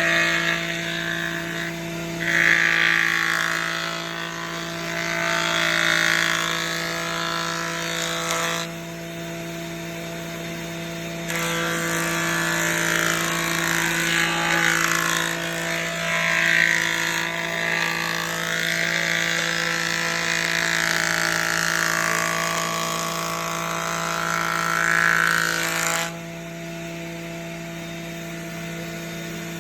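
Woodworking power tool running, its motor humming steadily, with two long spells of loud cutting noise as it works the wood. Near the end the cutting stops and only the motor is left running.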